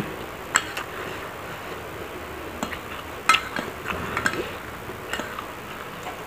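Metal spoon and fork clinking and scraping against a ceramic plate while scooping fried rice, a handful of short, irregular clinks.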